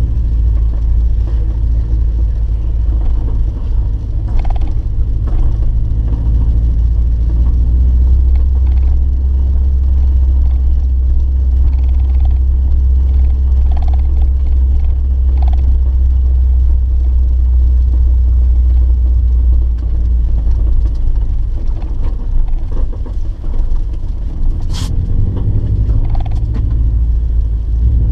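Steady low rumble of a car's engine, heard from inside the cabin as it is driven slowly at low revs. There are a few faint knocks, and one sharp click near the end.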